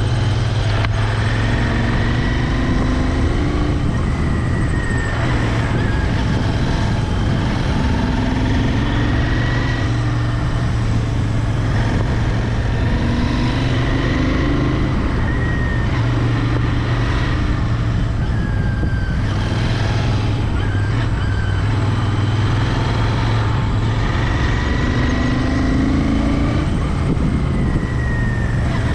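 Royal Enfield Interceptor 650's parallel-twin engine running steadily under way, its exhaust note holding at a fairly even pitch over road and wind noise.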